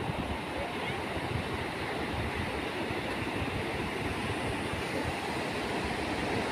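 Sea surf washing up on a sandy beach, a steady hiss of small waves.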